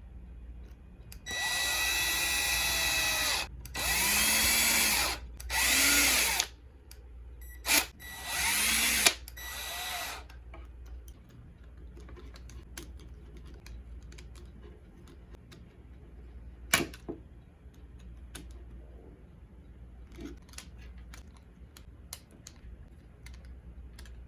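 Small cordless power driver run in about six short bursts, each speeding up and slowing down, as screws are driven into the RC crawler's differential housings to close them back up. After that only light clicks and handling of small parts.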